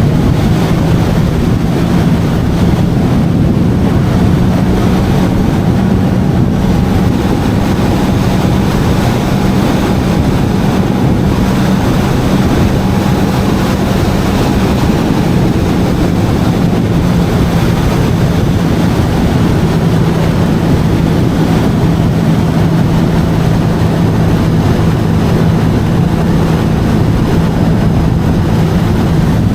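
Jet ski engine running at a steady speed: a constant low tone that does not rise or fall, under a continuous wash of water and rushing noise.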